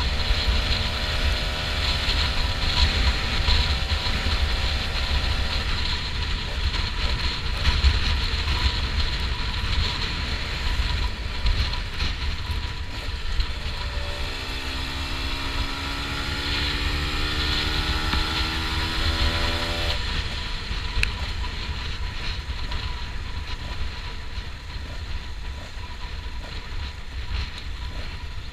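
Honda NSR125's two-stroke single-cylinder engine running while the bike is ridden, under heavy wind noise on the helmet-camera microphone. Past the middle the engine note climbs steadily for several seconds as the bike accelerates, then drops back.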